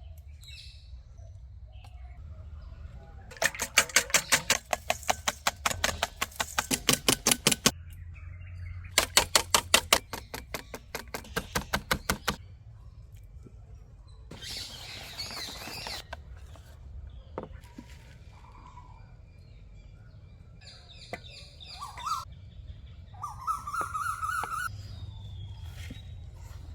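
Fast, rhythmic clicking of a hand whisk beating batter or egg whites in a bowl, at about seven strokes a second, in two runs of about four and three seconds. Birds chirp in the background, with a few short calls near the end.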